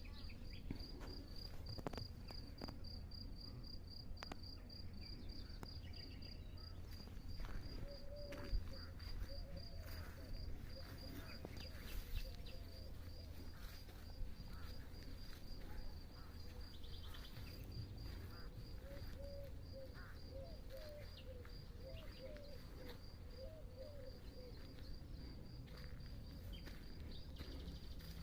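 A cricket-like insect chirps steadily in even, rapid high pulses, while a bird gives short, low warbling calls in two runs, about eight seconds in and again from about nineteen to twenty-five seconds in, over a low rumble.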